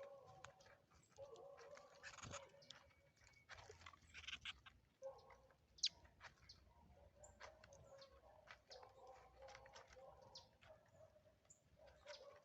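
Faint bird calls: repeated low calls and many short high chirps.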